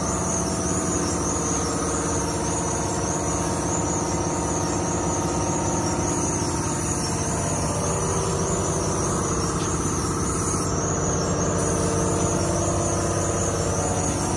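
A motor running steadily: an even mechanical drone with a high, wavering whine over it.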